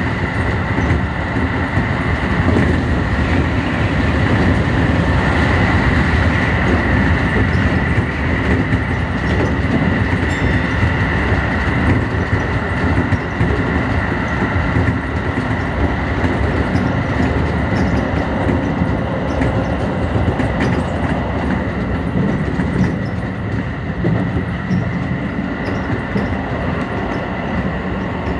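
Keio 8000-series electric train running at speed: a steady rumble of wheels on rail with a rapid clatter of clicks over the track, and a steady high whine running underneath.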